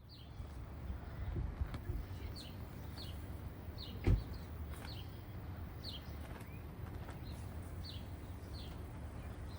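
Outdoor evening ambience: short, high chirps, each sliding downward, repeat every half second or so over a low rumble, with one sharp thump about four seconds in.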